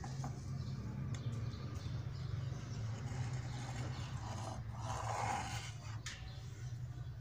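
Felt-tip marker scraping faintly as it traces around an LED bulb on a sheet-metal LCD backplate, over a steady low hum.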